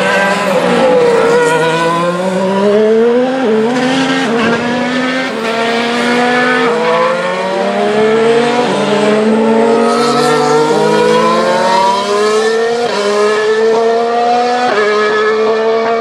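Formula 1 cars' turbocharged V6 hybrid engines accelerating through the gears. The pitch falls at first, then climbs and drops at each upshift about every two seconds.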